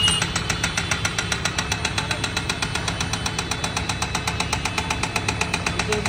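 JCB backhoe loader's diesel engine running with a steady, even clatter of about seven beats a second.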